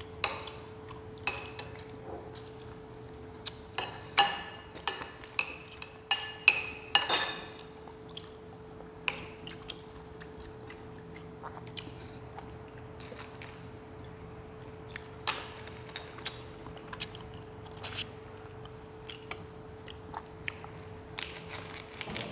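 Spoons clinking against porcelain plates and bowls during a meal: many short, sharp clinks, some of them ringing, thickest in the first eight seconds and scattered after, with some chewing. A steady faint hum runs underneath.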